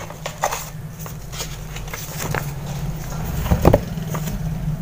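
Handling noise from a cardboard microphone box and its paper manual being taken out: scattered taps, scrapes and rustles, with a louder knock about three and a half seconds in, over a steady low hum.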